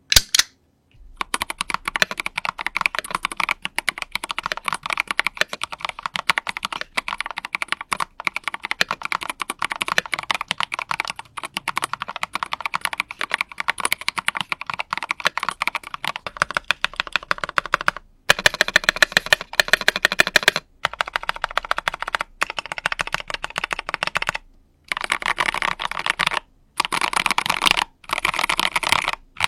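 Typing test on a mechanical keyboard with tall Pressplay JSA-profile PBT double-shot keycaps: a fast, dense stream of keystroke clacks. After a couple of single clicks it runs continuously for a long stretch, then breaks into short bursts of typing with brief pauses between them.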